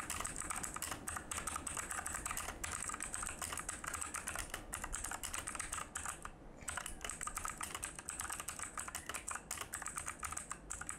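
Fast typing on a mechanical keyboard with blue switches: quite clicky and noisy, a dense run of keystroke clicks with a brief pause about six seconds in.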